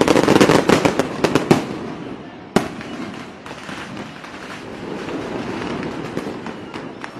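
Fireworks going off: a fast run of sharp crackling bangs in the first second and a half, a single sharp bang about two and a half seconds in, then a dense crackle that swells and fades toward the end.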